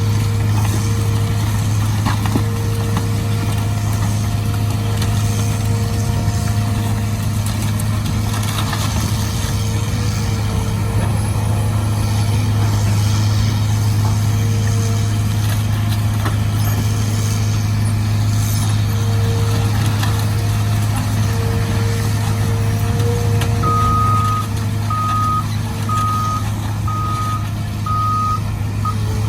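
Diesel engine of a heavy excavator running steadily under work, with a faint wavering whine above it. Near the end a reversing alarm beeps about once a second, six times.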